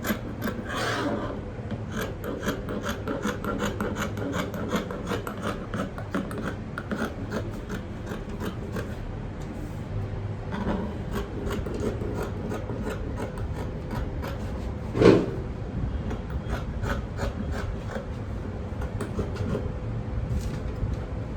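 Scissors cutting along a drafted skirt pattern on a table: a long run of quick, repeated snips and rustling. A single louder knock about fifteen seconds in.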